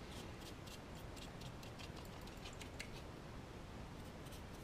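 Paintbrush working a thin meths-based wash over the plastic underframe of a model wagon: faint, irregular light ticks and scratches of the bristles, several a second.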